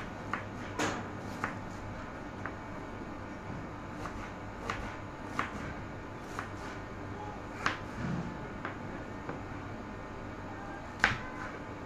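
Kitchen knife slicing a red onion on a cutting board: about a dozen sharp, irregular taps of the blade hitting the board, roughly one a second, the loudest near the end.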